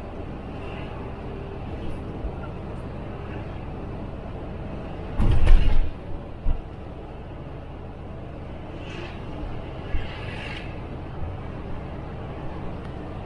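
Volvo bus running at highway speed, a steady engine and road rumble, with a short loud burst about five seconds in.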